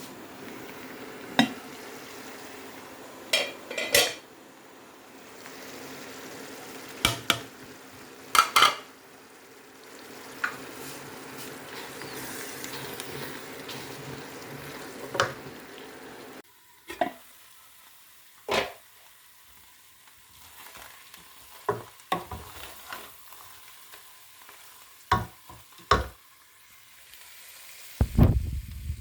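Food sizzling in a cooking pot while a spoon stirs and knocks against it. About halfway through the sizzling stops, and a few more separate clinks follow. Near the end there is a burst of low rumbling.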